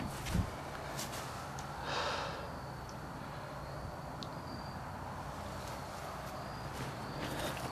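A person's breath near the microphone, one soft exhale about two seconds in, over a faint steady outdoor background. A brief low bump just after the start, likely from handling the camera.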